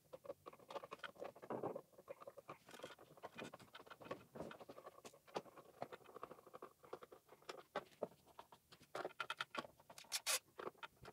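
Hand screwdriver turning screws into a junction-box faceplate: faint, irregular small clicks and scraping, busier near the end.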